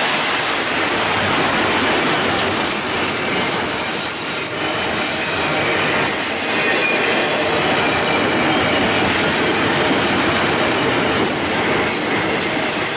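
Double-stack container well cars of a freight train rolling slowly past on the rails. There is a steady rumble and rattle of steel wheels on rail, with occasional clacks.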